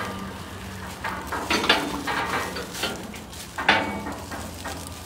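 Irregular metal clanks and rattles from a metal transport cage and its door being worked, the loudest a little under two seconds in and again near four seconds.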